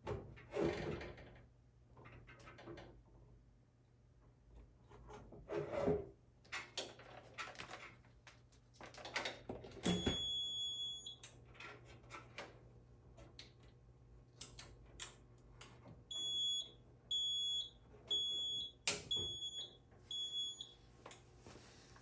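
Fire alarm control panel's piezo sounder beeping: one long high beep about ten seconds in, then a run of about six short beeps at the same pitch, evenly spaced, near the end. Scattered clicks and knocks come between the beeps.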